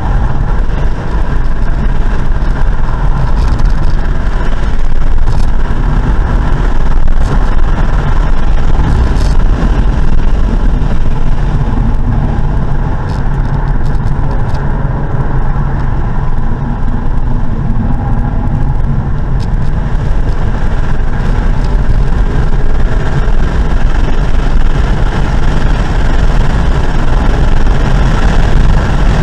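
A car's engine and road noise heard from inside the cabin while driving at speed: a steady drone with small rises and falls and no speech.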